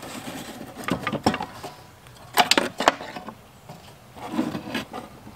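Handling noise as the wooden radio cabinet and chassis are worked apart: sharp knocks and clicks of wood and metal, in a cluster about a second in and a louder one about halfway through, then a softer rustle near the end.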